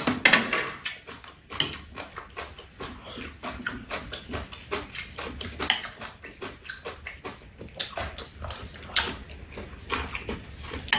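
Eating sounds: chewing and mouth noises mixed with many short, irregular clicks of spoons and chopsticks against stainless steel bowls.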